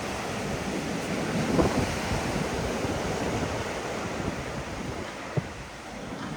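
Sea waves washing onto the shore in a continuous wash of surf, with wind buffeting the microphone. A short knock stands out about five seconds in.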